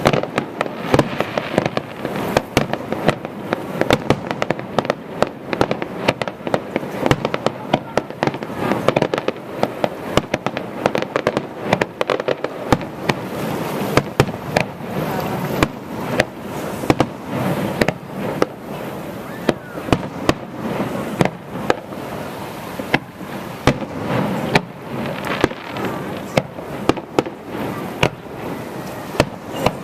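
Aerial firework shells bursting in a rapid, unbroken series of sharp bangs.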